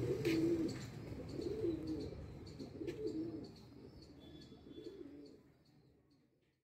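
Domestic pigeons cooing: a run of about five low coos, roughly one every second and a quarter, fading away near the end.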